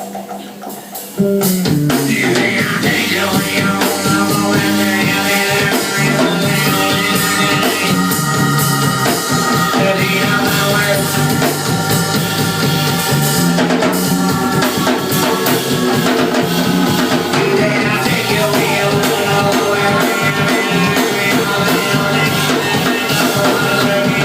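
A soul band playing an instrumental passage with a drum kit keeping the beat; the full band comes in loudly about a second in after a quieter opening.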